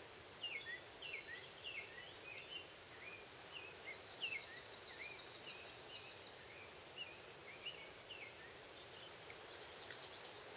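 A songbird calling in a string of short, separate chirps that bend up and down in pitch, over a steady outdoor hiss. About four seconds in, a fast, even ticking runs for around two seconds.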